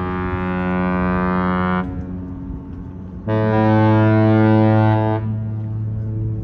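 Cruise ship's horn sounding as the ship departs: one long blast cuts off about two seconds in, then after a short gap a second, louder blast at a different pitch lasts about two seconds.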